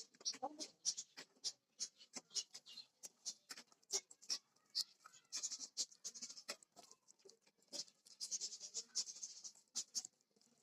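Ingredients being mixed in a bowl: a dense run of irregular clicks and scraping, with short stretches of rubbing noise.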